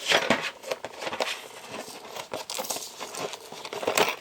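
Retail processor box being opened by hand: irregular crinkling and rustling of cardboard and plastic packaging, with small clicks.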